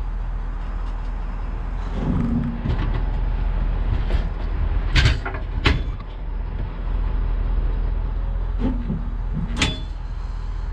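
Pickup truck engine running steadily at low revs while reversing under a fifth-wheel trailer, with creaks and two sharp metal clunks about five seconds in as the trailer's kingpin slams into the Curt Q24 fifth-wheel hitch and its jaws lock. Another clank comes near the end.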